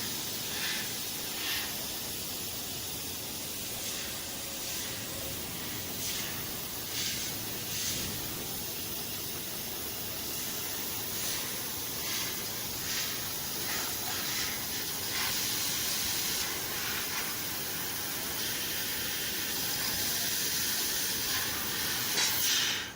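A 1 kW fiber laser cutting 3 mm carbon steel sheet: the assist-gas jet from the cutting head hisses steadily, with short louder surges every second or so. It stops suddenly near the end.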